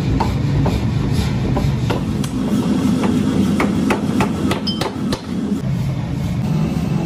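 Forging power hammer striking red-hot steel held in tongs, in a steady series of about two blows a second over the low running rumble of the machine.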